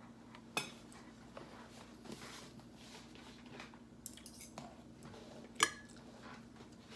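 Cutlery clinking and scraping on plates and foil trays while people eat, with a few sharp clinks, the loudest about five and a half seconds in. A faint steady hum runs underneath.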